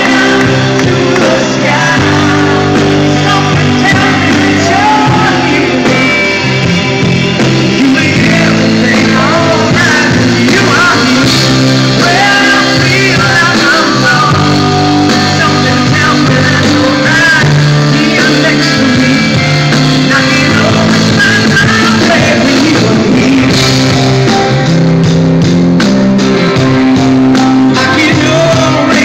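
Live rock band playing a ballad in a large hall, with singing over the band.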